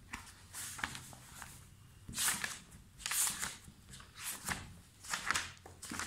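A sheet of notebook paper and a pen being handled on a desk: a series of short, scratchy rustles, loudest about two and three seconds in.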